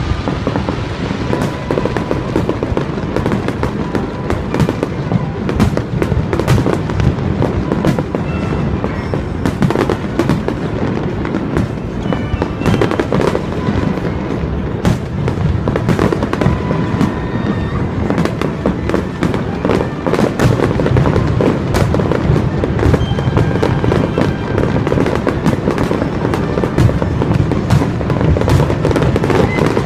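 Aerial fireworks display: shells bursting one after another in a continuous rumble of booms, thick with sharp bangs and crackles.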